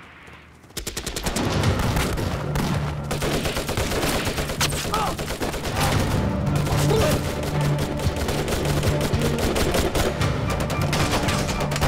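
Heavy battle gunfire breaking out about a second in: rapid machine-gun fire mixed with rifle shots, continuous and dense, over a low steady music underscore.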